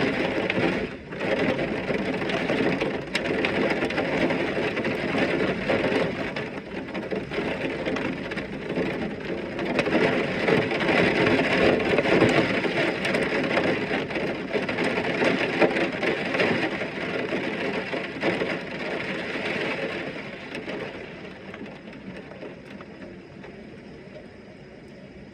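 Heavy rain falling in a thunderstorm, a dense hiss speckled with many small drop hits, easing off over the last few seconds.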